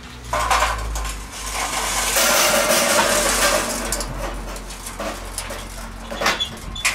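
Charcoal briquettes pouring out of a chimney starter, tumbling and clattering onto the metal grate of a perforated steel fire pot. The clatter is thickest in the middle, with a few separate knocks near the start and near the end.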